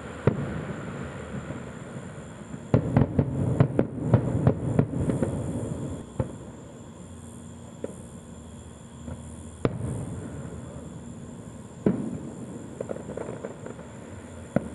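Consumer aerial fireworks going off: single sharp bangs of shells bursting, with a rapid cluster of bangs about three seconds in, and crackling pops after a bang near the end.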